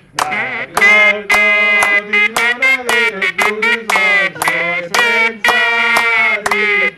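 A bright, reedy tune of held and quick notes, played by mouth into cupped hands, with short breaks between the notes.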